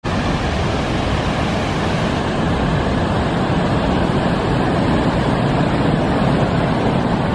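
Water from a high-volume flood release at Hitokura Dam (about 35 m³/s) pouring over the spillway weir into the stilling basin, making a steady, loud rush of falling and churning whitewater.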